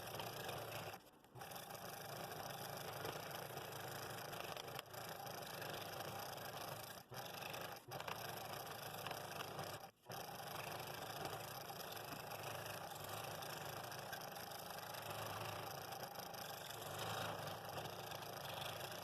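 Scroll saw running and cutting 1/4-inch wood, a steady sound that briefly cuts out about a second in and again about ten seconds in.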